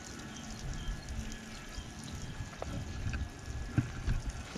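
Water pouring out of a Mercedes Sprinter van's sill drain hole that has just been poked clear: the sill has filled with trapped water behind the blocked drain.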